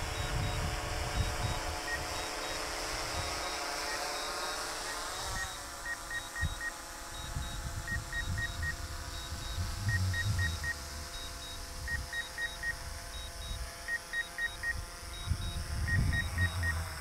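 DJI Mavic 3 Multispectral quadcopter's propellers whining as it descends to land, the pitch sliding in the first few seconds and then holding steady. Short electronic beeps in fours repeat about every two seconds, with irregular low rumbles underneath.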